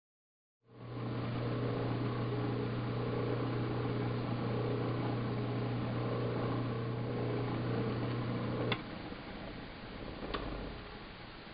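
Electric wood lathe motor running with a steady hum; about nine seconds in a click and the hum cuts out, leaving fainter noise and a second click shortly after.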